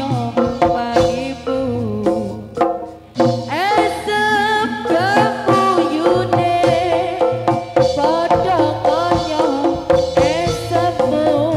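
Live Javanese jaranan music: drums beating over a held gamelan tone, with a high, wavering melody line that bends and rises about four seconds in after a brief drop in loudness.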